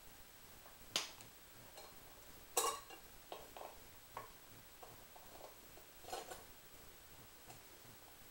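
Scattered small metal clicks and taps from removing the screws and inspection plate on the flywheel of a 1959 Evinrude Fastwin 18 hp outboard, the loudest a short clatter about two and a half seconds in and a few more around six seconds.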